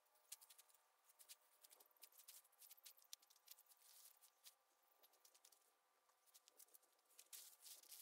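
Faint crinkling and crackling of a plastic tarp and tent fabric being handled, many small scattered crackles, over a faint steady hum.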